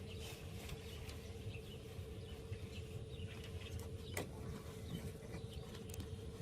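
Heater/AC blower fan of a 1999 Ford F-350 Super Duty running steadily, a faint even hum with air rushing from the vents, working again on a newly fitted blower motor resistor and connector. Birds chirp now and then in the background.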